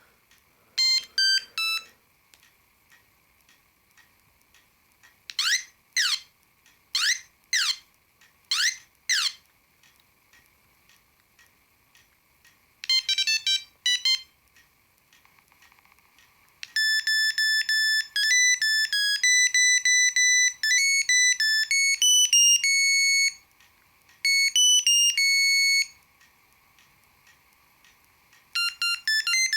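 An Ericsson T20e mobile phone plays its built-in ringing signals one after another, each a short single-line beeping tune. Among them are three pairs of quick falling chirps and a longer melody of held beeps.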